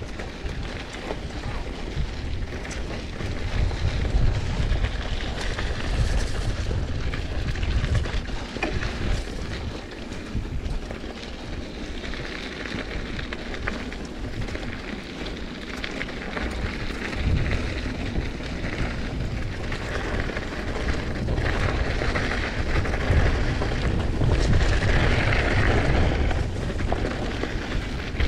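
Mountain bike riding down a dirt singletrack: wind buffeting the action camera's microphone in an uneven low rumble, over the hiss of tyres on the trail and scattered rattles and knocks from the bike over bumps.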